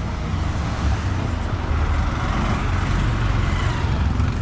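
A motor vehicle's engine running close by, a low rumble that gets louder.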